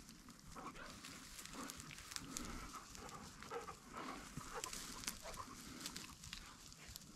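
Dry tall grass rustling and crunching under a hunter's footsteps, with faint sounds from a beagle working through the grass close by.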